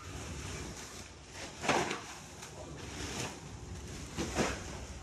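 Cargo being unloaded by hand: three dull knocks and scrapes of loads being set down or tossed, about a second and a half apart, the first the loudest, over a low steady rumble.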